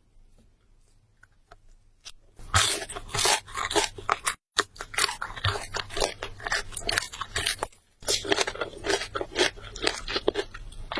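A person chewing and crunching food with wet mouth sounds, starting about two seconds in after a near-quiet start, in an irregular run of crunches with two short breaks.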